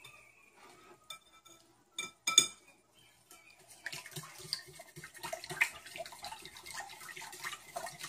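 Wire whisk beating a thin curry sauce in a ceramic mixing bowl. A few sharp clinks of the whisk against the bowl come about two seconds in, then a steady, rhythmic wet whisking takes over from about four seconds in.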